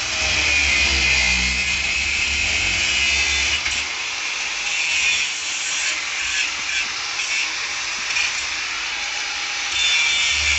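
Corded angle grinder cutting into the pump-house lid's sheet, a harsh steady grinding that is heaviest at first, comes and goes in the middle as the disc is worked along the cut, and grows loud again near the end.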